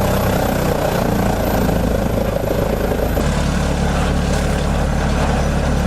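A large engine running steadily under load with a strong low drone; about three seconds in it cuts abruptly to another steady engine drone.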